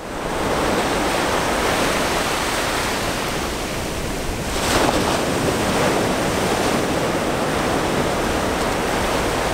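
Ocean surf breaking and washing up the beach in a steady rush, with one wave breaking louder about four and a half seconds in.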